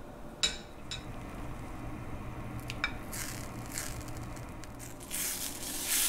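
Butter melting in a stainless steel skillet over a gas flame and being pushed around with a spatula, with a few sharp taps of the spatula against the pan. The melting butter begins to sizzle, the sizzling growing louder in the last second.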